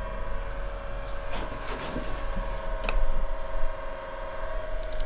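A smoke machine's small air pump hums steadily as it pressurises the engine's intake for a vacuum-leak smoke test, with a few light clicks from handling.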